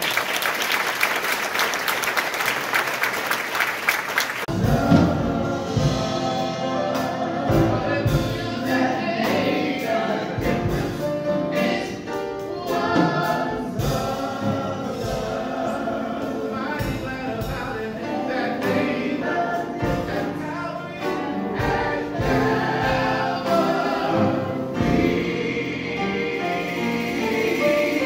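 Congregation applauding for about four seconds, then gospel singing by a church choir with instrumental accompaniment and a steady beat.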